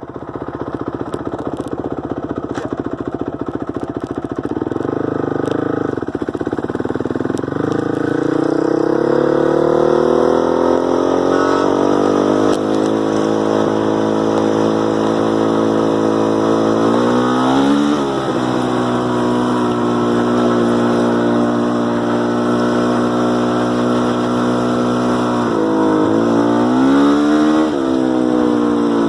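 2006 Honda CRF450R's single-cylinder four-stroke engine idling. Its idle speed climbs over the first several seconds, then holds steady, with two brief changes in revs, one midway and one near the end.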